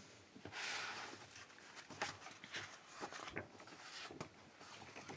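Faint handling noises: a soft rustle about half a second in, then scattered light clicks and taps.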